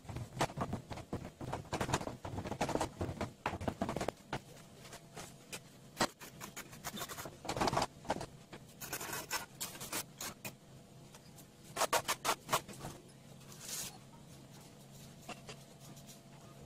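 Moulding sand being packed and worked by hand and tool in a sand-casting flask: irregular scraping and rubbing with many sharp taps and knocks, busiest in the first few seconds and in clusters later on.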